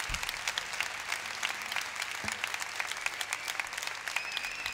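Theatre audience clapping steadily, many hands together. A thin high tone is heard near the end.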